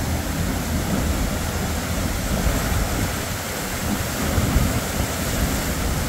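Two-stream waterfall plunging into a pool: a steady rush of falling water, with some wind noise on the microphone.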